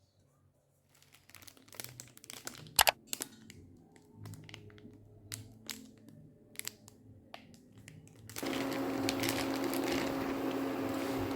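Crinkling and clicking of something being handled, with one sharp click about three seconds in. Then, about eight seconds in, an appliance motor switches on with a steady hum.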